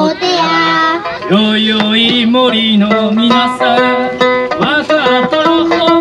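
Live song sung in Japanese over a handmade sanshin, a three-stringed lute. The singing moves to a lower man's voice about a second in.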